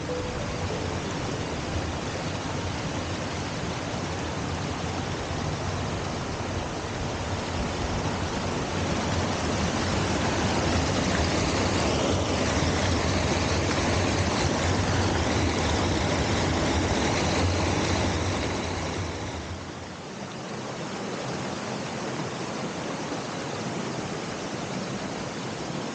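Waterfall rushing: a steady loud rush of falling water with a deep rumble underneath. About two-thirds of the way through it drops to a softer rush and the deep rumble largely falls away.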